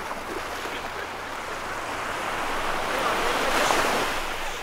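Ocean surf at the shoreline: a wave swells and breaks, loudest about three and a half seconds in, then eases back as it washes out, with wind buffeting the microphone.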